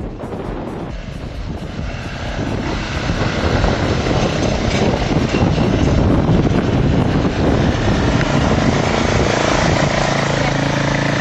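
Four-stroke 150cc engine of an XA150 gas ATV running as the quad is ridden, getting louder about three seconds in.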